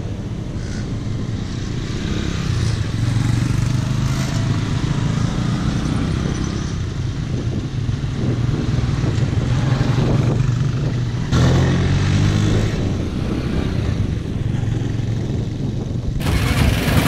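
Small motorcycle engines running as several riders ride along a dirt track, the engine note rising and falling. The sound changes abruptly about eleven seconds in and again near the end.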